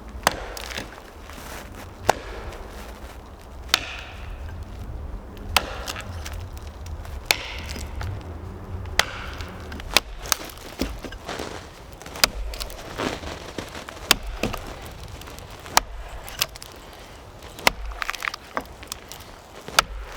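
Wood being chopped with an axe: single sharp strikes, about one every one and a half to two seconds.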